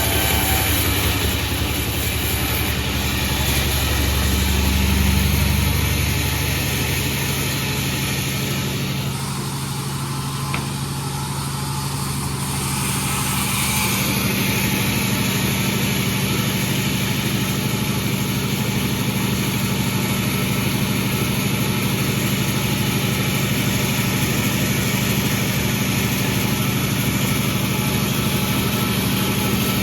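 Pandan36 sawmill running steadily, a motor hum over a wide noisy rush; the sound changes for a few seconds in the middle, then returns to the same steady note.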